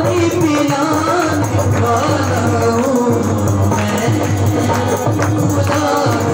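Male voice singing an Urdu Christian worship song (geet) to harmonium accompaniment, with a dholak drum keeping a steady rhythm underneath.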